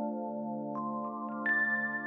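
Soft ambient background music: a held low chord with single ringing notes entering one after another, each a step higher, the loudest about one and a half seconds in.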